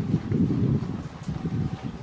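Wind buffeting the microphone: a gusty low rumble that swells and drops every fraction of a second.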